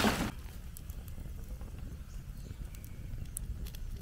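Wood fire crackling, with scattered sharp pops over a low rumble. A burst of loud wind noise on the microphone cuts off just after the start.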